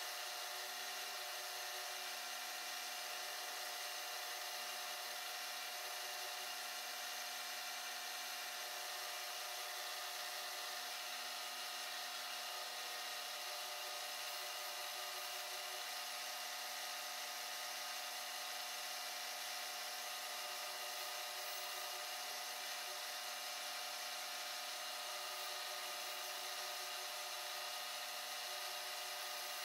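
Milling machine with its spindle running, an end mill side-cutting the knee casting of a miniature drill press. The sound is steady throughout.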